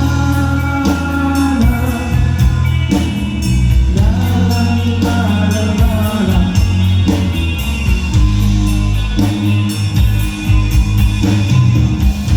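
Live rock band playing loud amplified rock with electric guitar, drum kit and a sung vocal line, during a sound check.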